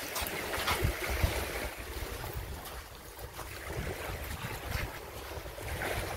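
Wind buffeting the microphone, with small waves washing onto the sand.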